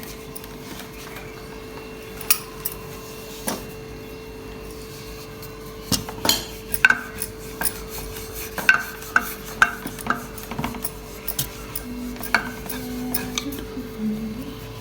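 Metal kitchenware clinking and knocking: a few scattered clinks, then a busy run of clinks from about six to eleven seconds in, some ringing briefly, over a steady hum.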